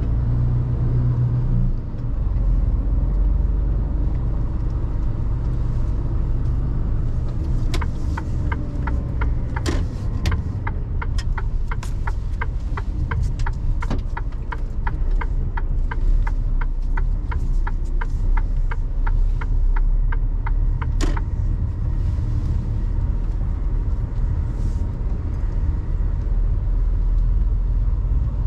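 Mercedes Actros truck engine running with a steady low rumble heard from inside the cab. About a third of the way in, a regular ticking of a few clicks a second starts and runs for roughly thirteen seconds before stopping with a sharper click, typical of the turn-signal indicator being switched on and then cancelled.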